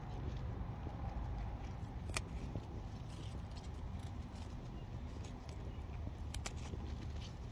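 Broad bean sprout stems snapping as they are pinched off by hand: one sharp snap about two seconds in and two close together near the end, over a steady low rumble.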